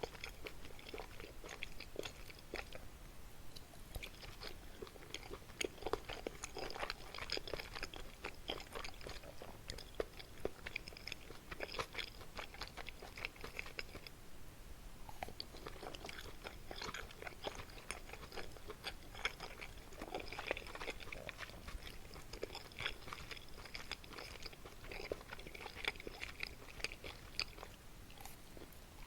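Close-miked chewing of kimchi and meat dumplings: many quick, sharp mouth clicks and wet eating sounds, with a short pause about halfway through.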